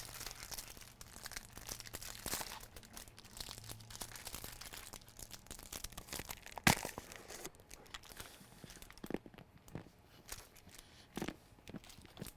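Packaging being crinkled and torn open in a run of short rustles, with one sharp knock about halfway through.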